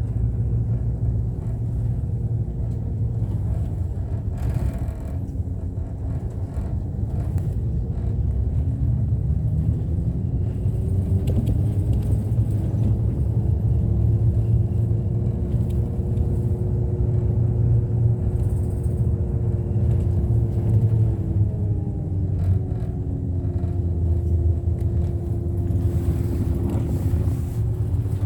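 Route bus heard from inside the cabin: a steady low engine and road rumble. The engine's hum climbs and holds, drops back about two-thirds of the way through, then rises again near the end as the bus changes speed.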